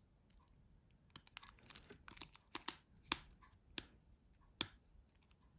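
Small screwdriver driving a tiny screw into a Nokia 6700 Classic's housing: a string of faint, irregular clicks and ticks.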